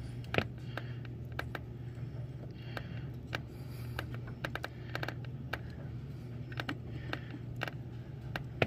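Irregular light metallic clicks and clinks as a rusty upper steering-shaft U-joint is worked by hand, trying to line it up and slide it onto the splined shaft. One sharper knock comes about half a second in, over a steady low hum.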